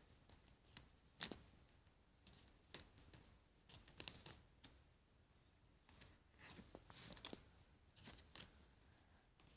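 Faint, irregular clicks and rustles of stiff cardboard trading cards being slid and flicked off a stack one after another.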